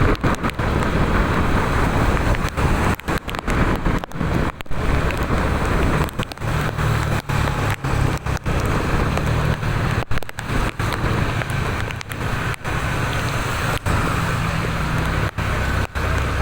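Road traffic noise in the rain, with a heavy vehicle's engine running low and steady through the second half. The sound is cut by many brief dropouts.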